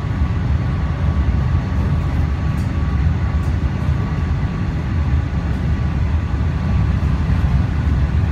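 Cabin noise inside a Melbourne Metro suburban electric train running at speed: a steady low rumble from the wheels on the rails, with a faint steady tone above it.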